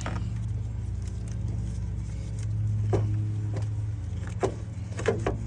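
A steady, low mechanical hum that swells a little in the middle, with a few light clicks.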